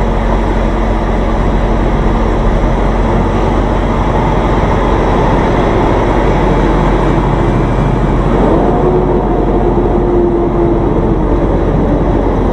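Semi-truck's diesel engine running, heard from inside the cab as the truck pulls away from a stop and creeps forward at walking pace. A pitched engine tone climbs about two-thirds of the way through, holds, and drops away near the end.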